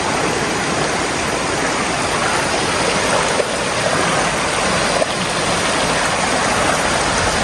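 Hot-spring stream rushing over rocks in shallow rapids right by the microphone: a loud, steady, even rush of water.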